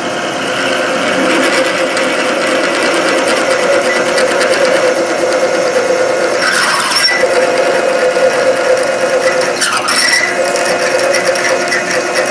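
Milling machine spindle driving a large twist drill into a metal bar held in the vise, running steadily with grinding cutting noise. Twice, about halfway through and again about ten seconds in, it briefly grows louder and harsher as the drill bites.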